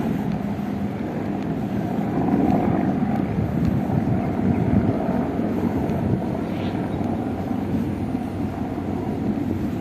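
Wind buffeting the camera microphone: a steady, choppy low rumble with no clear tones or distinct events.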